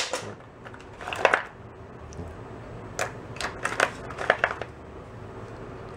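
Small old electrical switches clicking and clinking against each other as they are rummaged through in a wooden parts box, in a few short clusters of clicks.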